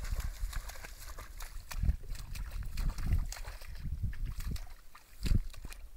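Irish setter pushing through tall grass at a pond's edge: a busy rustling and crackling of stems, with repeated dull thumps and some light sloshing.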